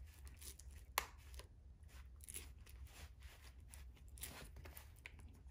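Faint handling noise of hands working polymer R2 clips on a nylon gun belt: one sharp click about a second in, then soft scattered clicks and rustles.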